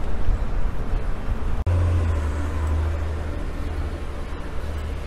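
Steady low rumble of outdoor street ambience, with a brief sharp dropout about a second and a half in, after which the low rumble is stronger.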